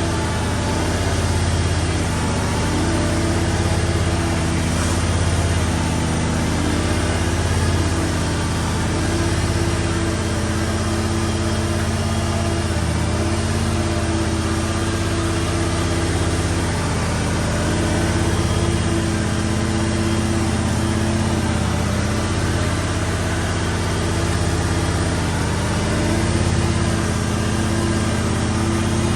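Briggs & Stratton Vanguard engine, newly fitted in a mini skid steer, running steadily at an even speed.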